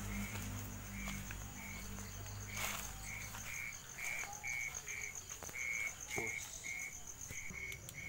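Crickets chirping at night: a series of short chirps, about two a second, over a continuous high, fast insect trill. A low rumble fades out about three and a half seconds in.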